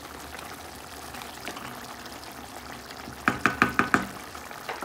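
Wooden spoon stirring a simmering curry in a metal pan, then about five quick knocks of the spoon against the pan, each with a short metallic ring.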